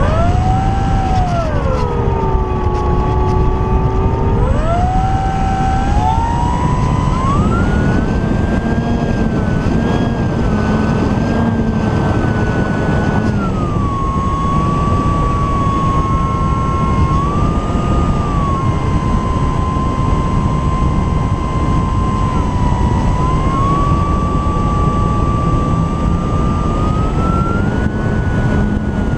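E-flite Apprentice S 15e RC trainer plane's brushless electric motor and propeller whining in flight, the pitch rising and falling with the throttle: it climbs near the start, holds high for several seconds, then drops and stays lower. Steady wind rush on the microphone underneath.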